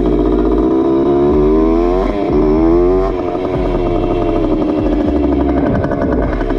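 Suzuki JR80's small two-stroke single-cylinder engine being ridden. It climbs in pitch under throttle, dips briefly about two seconds in as it shifts up, climbs again, then falls away slowly as the throttle comes off.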